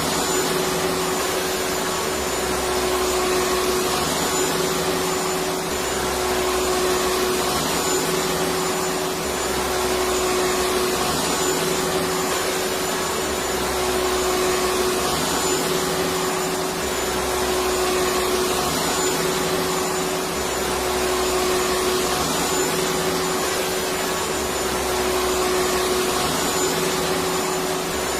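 Vacuum cleaner motor running steadily: an even whooshing hiss with a constant hum and a faint high whine. The level swells gently about every two seconds.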